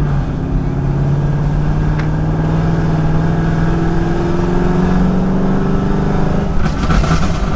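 Chevrolet Camaro SS's LT1 V8 with long-tube headers on part-throttle acceleration, its exhaust note climbing slowly and steadily for about six seconds. Near the end the throttle comes off and the exhaust crackles and pops on the overrun, which is the burble added by the crackle tune.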